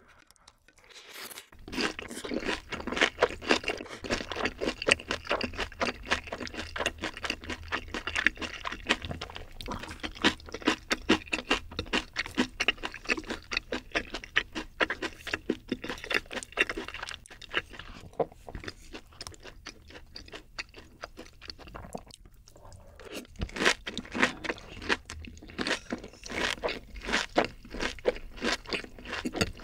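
Close-miked chewing of a mouthful of rice and napa cabbage kimchi: many crisp crunches as the cabbage is bitten through. The crunching eases off briefly about 22 seconds in, then starts again.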